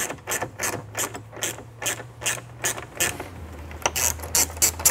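Small hand ratchet clicking as it backs out the 8 mm fastener that holds a door pull to the door card, about three to four clicks a second.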